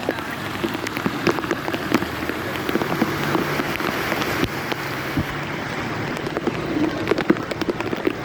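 Heavy rain falling steadily, with many sharp drop impacts on a nearby surface.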